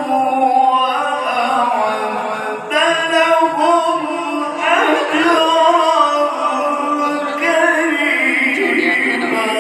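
A man reciting the Qur'an in the melodic tilawah style: one unaccompanied voice, amplified through a microphone, holding long notes that waver and bend in ornamented runs.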